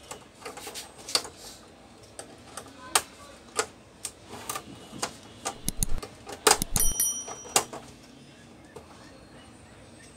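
Irregular plastic and metal clicks and snaps as the frame and panel of a disassembled LED TV are handled and worked apart by hand. They are busiest about two-thirds of the way through, with a brief ringing tone among them.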